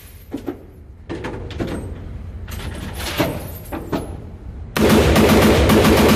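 Short-barrelled AR-pattern rifle fired in a fast string of rapid fire, the shots so close together they nearly run together. It starts suddenly about three-quarters of the way in, after a few scattered knocks and clicks, and echoes inside an indoor range.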